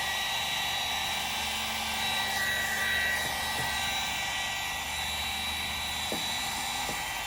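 Heat gun blowing with a steady whirring whine, warming the tint film on a car taillight so it lays down; its low hum drops out about six seconds in.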